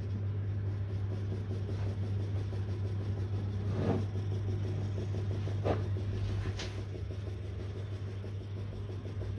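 Small model steam engine running fast and steadily, a constant low hum with mechanical noise. There are a few sharp clicks near the middle.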